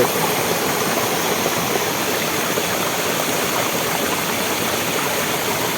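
Waterfall and stream water rushing, a steady, even roar.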